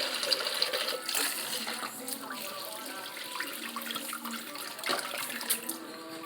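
Tap water running into a kitchen sink as soaked beans are rinsed, the water a little louder in the first second or two.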